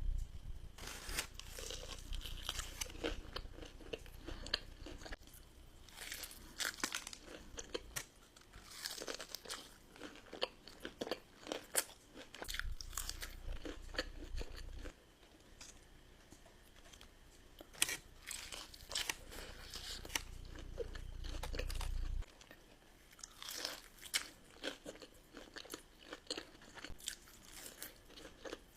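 Close-miked eating: repeated crunchy bites and chewing of crispy fried food, irregular and crackly.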